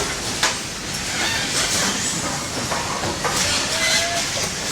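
Factory floor noise on a microwave oven assembly line: a steady hiss with scattered clicks and clatter of parts and machinery.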